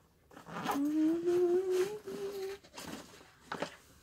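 A girl humming one long note that slowly rises in pitch, with a few short rustles and knocks of movement around it.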